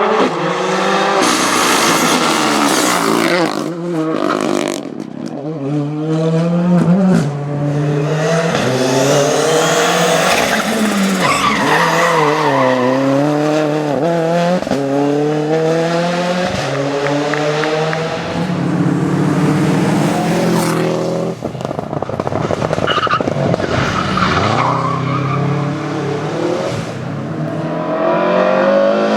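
Rally car engines revved hard at full throttle, the pitch climbing and dropping again and again through gear changes and lifts.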